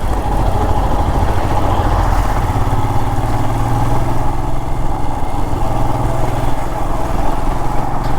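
Royal Enfield Himalayan's 411 cc single-cylinder engine running steadily while the motorcycle is ridden along the road.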